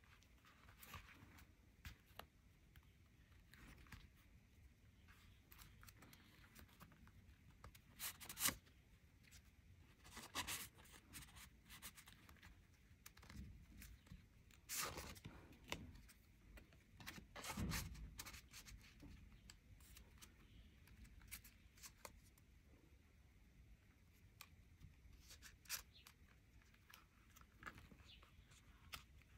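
Faint handling sounds of a pebbled-leather bifold wallet being opened and its card slots and bill compartment worked by fingers: scattered soft scrapes and rustles, the loudest about a third of the way in.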